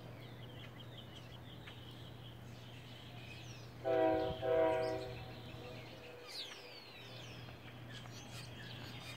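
Outdoor ambience: a steady low hum with faint, high small-bird chirps and a falling whistle. About four seconds in come two short honks in quick succession, each about half a second long and flat in pitch.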